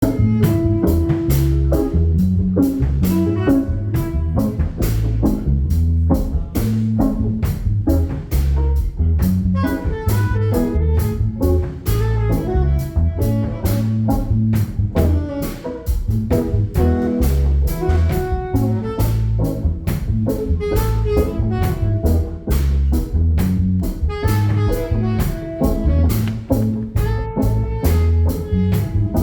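Live band jamming an instrumental tune: a drum kit keeps a steady beat under a bass line and a melodic lead instrument.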